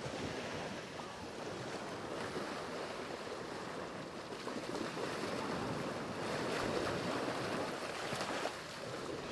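Steady wash of sea surf on a beach, with wind buffeting the microphone.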